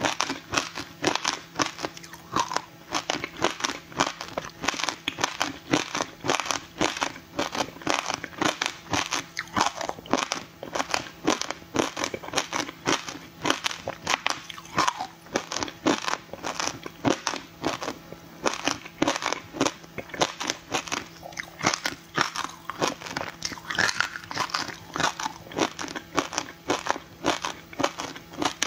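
Frozen passion fruit ice, with its seeds frozen in, being bitten and chewed: a rapid, unbroken run of crunches and cracks, several a second, as the ice breaks between the teeth.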